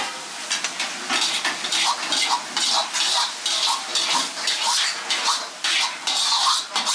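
Metal ladle scraping and clanking against an iron wok as fried rice is scooped out of it, a quick run of scrapes and knocks about three a second.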